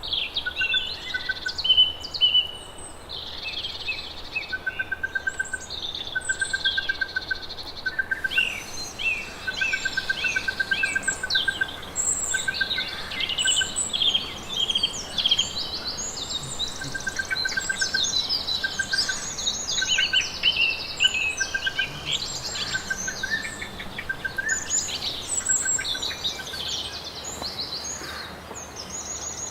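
Several birds singing and calling at once: many quick high chirps and warbles overlap, while one bird keeps repeating short, fast trills of evenly spaced lower notes about every second or two.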